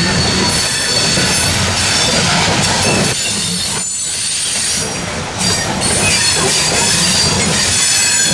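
Loaded coal hopper cars rolling past, their steel wheels squealing against the rails in thin high tones over a steady rumble and rattle. The sound dips briefly a little past halfway, then comes back.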